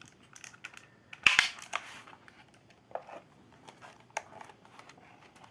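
A mechanical keyboard being handled and turned about on a desk: scattered clicks and light knocks, the loudest a sharp double knock about a second in.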